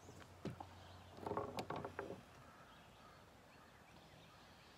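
A bird calling: three short, harsh calls in quick succession about a second in, with a light click just before.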